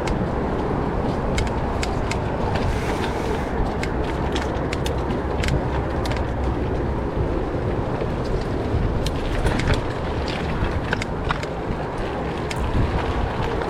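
Wind rushing over the camera microphone and tyres running on a dirt trail while a mountain bike is ridden, with scattered clicks and rattles from the bike.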